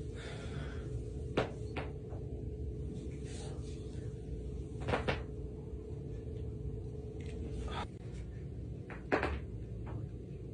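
Spine joints cracking as a person's back is adjusted: several sharp pops at uneven intervals, the loudest about a second in, near the middle and near the end, over a steady low background hum.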